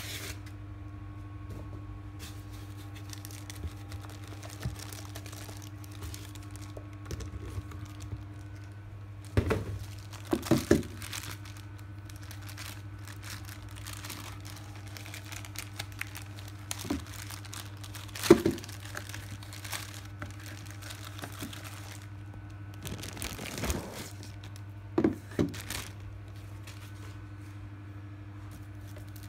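Plastic packaging being handled: crinkling and rustling of a clear zip-lock bag and box packing in short clusters a few seconds apart, over a steady low hum.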